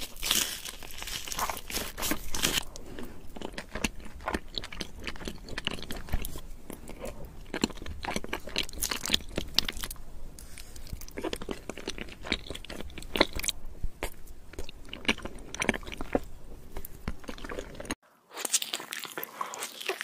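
Close-miked eating sounds: crunching bites and chewing of cheesy macaroni with crisp browned bits, made up of many quick, uneven crackles. Near the end the sound cuts out for a moment and another bout of biting and chewing begins.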